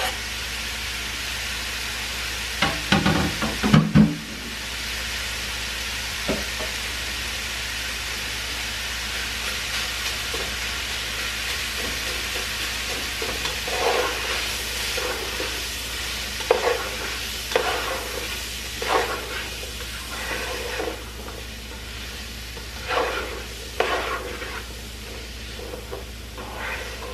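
Chicken and diced vegetables sizzling in oil in a frying pan. About three seconds in there are several loud knocks as the vegetables are scraped off a cutting board into the pan. From about halfway on, a spatula scrapes and clacks against the pan as it is stirred.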